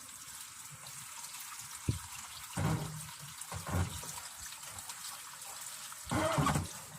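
Drain water running steadily out of a washing machine during its drain/spin cycle, part of it leaking from a broken white drain hose. A few brief low sounds break in now and then.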